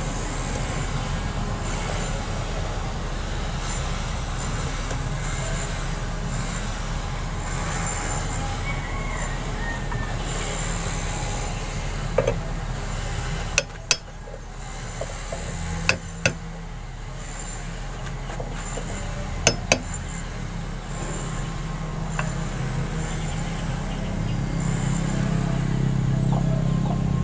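Hammer striking a steel drift against the circlip in a Bajaj RE front hub, seating it over the new wheel bearing: three pairs of sharp metallic taps from about halfway through, over a steady low hum.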